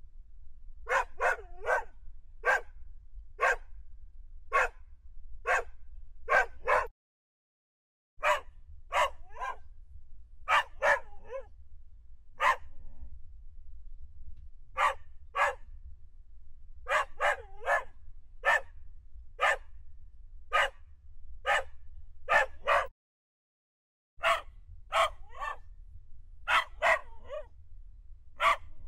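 Dogs barking repeatedly: sharp single barks and quick doubles and triples, about one to two a second. The barking cuts to dead silence for about a second twice, roughly seven and twenty-three seconds in.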